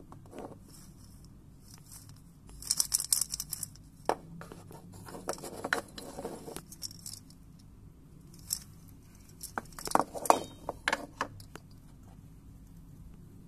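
Small wooden baby maracas with dried peas inside, rattled by hand in several short bursts of quick, soft clicking, with light wooden knocks among them.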